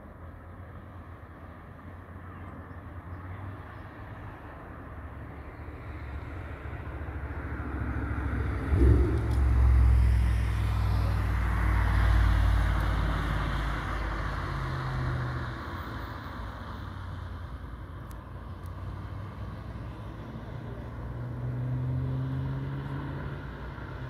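First-generation Audi R8 sports car engine driving past. Its low rumble swells to loudest about nine to twelve seconds in, with a sharp burst near nine seconds, then eases off and rises again near the end.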